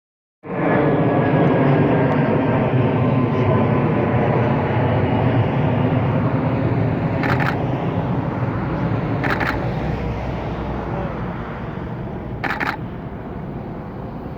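Jet airliner taking off, a loud, dense engine roar that starts abruptly and slowly fades. A Canon 5D Mark III's shutter fires in three short bursts in the second half.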